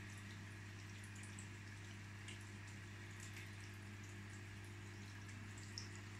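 Aquarium pump running: a steady low hum, with water trickling and small bubbles ticking and popping at the surface.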